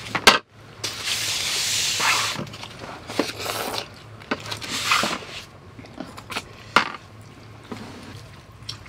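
Cold buckwheat noodles (makguksu) being slurped up from chopsticks: a long slurp about a second in, then several shorter slurps, with a sharp click just at the start.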